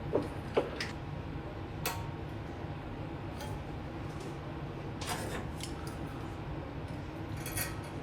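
Light metallic clicks and clinks of hand tools and fittings as a carburetor is unbolted and lifted off a small engine. There are a few sharp clicks in the first two seconds, a cluster about five seconds in and one more near the end, over a steady low hum.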